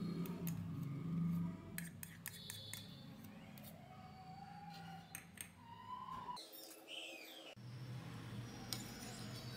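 Metal spoon scraping soft ghee out of a plastic bowl and stirring it in a pan, with a run of light clicks about two to three seconds in, over a low steady hum. Faint chirps sound in the background around the middle.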